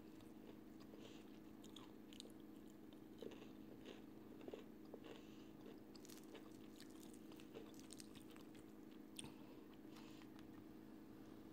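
Faint chewing and scattered crunches of crispy fried chicken being eaten, with a steady low hum underneath.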